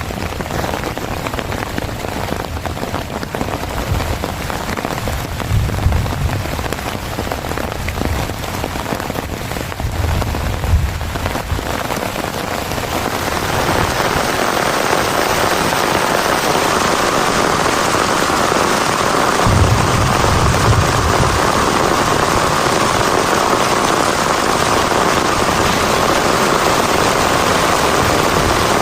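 Heavy rain falling, at first with separate drop strikes and a few low rumbles, then about halfway through turning into a denser, louder, steady downpour.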